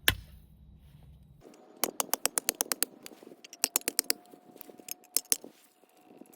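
Pocket-knife can opener levering its way around the rim of a tin can, in two runs of quick, sharp metal clicks.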